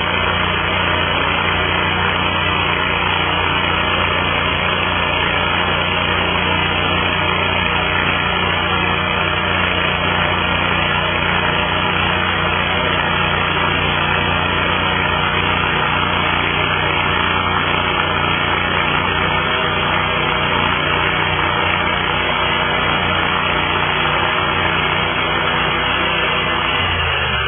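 Engine of a Peterson Dedicated Wide Slabber, a sawmill-frame-mounted chainsaw slabbing unit, running steadily at a constant pitch.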